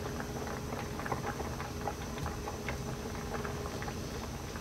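Pot of salted water with peeled potatoes at a rolling boil, bubbling with a dense, steady crackle of small pops.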